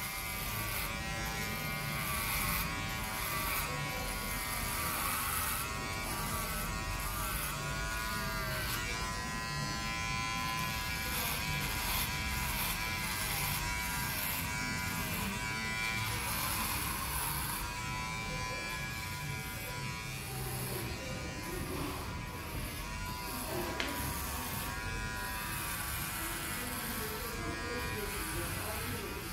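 Cordless electric hair clipper buzzing steadily as it is run over the sides of a closely shaved scalp, its pitch wavering up and down as it moves across the head.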